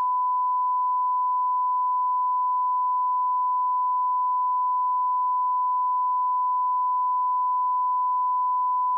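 Broadcast reference test tone: a steady, unbroken 1 kHz beep at constant level, sent with colour bars over a feed with no programme on it.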